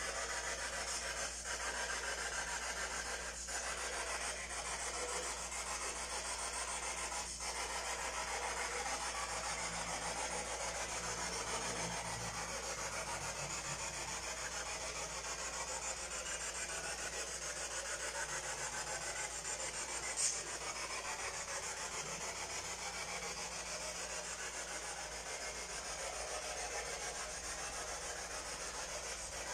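Steady hiss of background noise, with a single short click about twenty seconds in.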